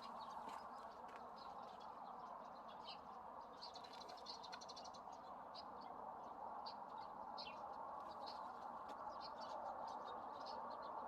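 Small birds chirping and calling again and again, with a brief denser trill about four seconds in, over a faint steady background hiss.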